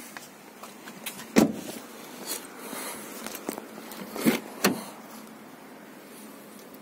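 A 2017 Volkswagen Golf's door thudding shut about a second and a half in. Two more knocks follow close together around the middle.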